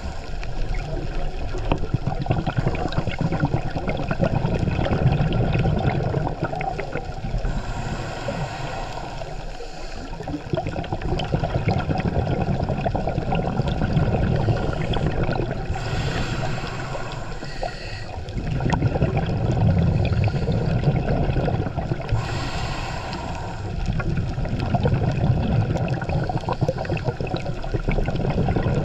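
Underwater sound from a scuba dive: a diver's exhaled bubbles gurgling and rumbling, swelling and easing in slow breathing cycles several seconds apart.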